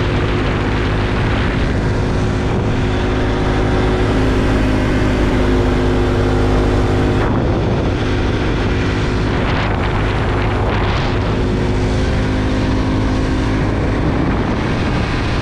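Bajaj Pulsar 200NS single-cylinder engine running steadily at cruising speed, with the note shifting slightly about seven seconds in, under a rush of wind and road noise.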